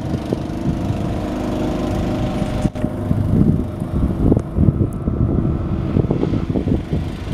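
Fishing boat's inboard diesel engine running steadily as the boat passes close by. From about three seconds in, gusts of wind buffet the microphone.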